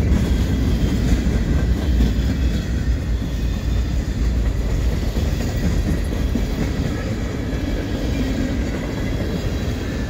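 Freight cars of a CN freight train (covered hoppers, boxcars and a gondola) rolling past, a steady low rolling noise of steel wheels on rail.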